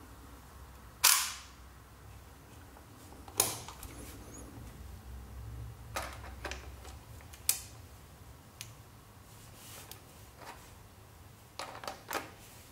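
Kiev-19 35 mm SLR camera being worked by hand: a string of sharp mechanical clacks and clicks from its shutter, winding and lens mount, with a Kalimar 35–70 mm zoom lens being fitted. About seven clicks, the loudest about a second in and a quick pair near the end.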